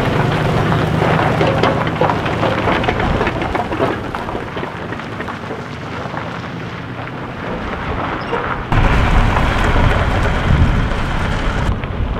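Steady rushing outdoor wind noise. About nine seconds in a heavier low rumble joins it: a pickup truck driving, with wind buffeting the microphone.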